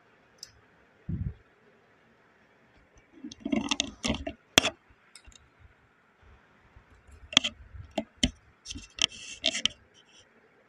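Scattered clicks and scrapes of metal on a Brother knitting machine's needle bed as it is worked by hand, with a dull thump about a second in. The clicks come in a cluster around four seconds and again in a run near the end.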